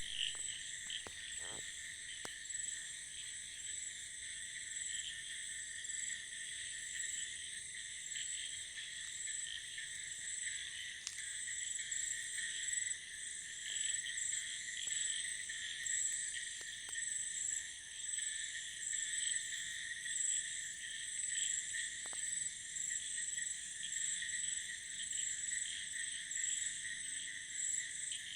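Night chorus of frogs and crickets calling after heavy monsoon rain: a dense, steady mass of calls in several high pitched bands, with a fast pulsing trill on top.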